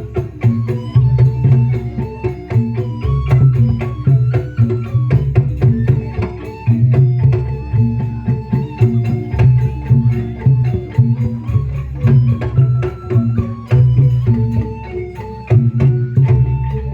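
Instrumental dance music: a melody of short stepping notes over hand-drum percussion and a heavy, repeating bass beat.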